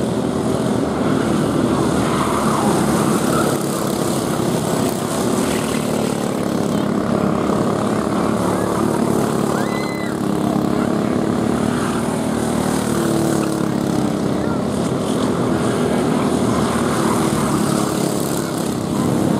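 Several racing go-karts with 5 hp Briggs & Stratton flathead (Raptor) engines running hard around a dirt oval, their engines overlapping in a continuous drone.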